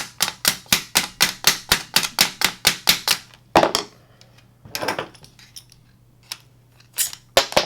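Small hammer tapping a punch to drive the groove pin out of a tripod's leg lock lever: a fast, even run of light metal taps, about five a second, for about three seconds. Then come a few louder single knocks.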